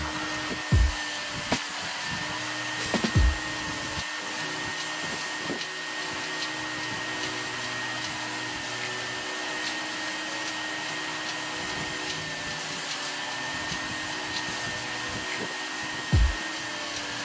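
Handheld steam cleaner hissing steadily, with a steady high whine, as its towel-wrapped triangle head is worked over a vinyl bench seat. A few dull thumps stand out: about a second in, around three seconds in and near the end.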